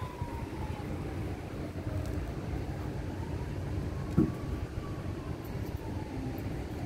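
Steady low outdoor rumble of traffic, with a faint tone that slowly falls and rises every few seconds, and a single short knock about four seconds in.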